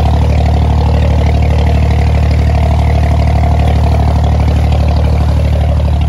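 Diesel engine of an abra, a wooden Dubai Creek water taxi, running steadily under way with a fast, even pulsing beat.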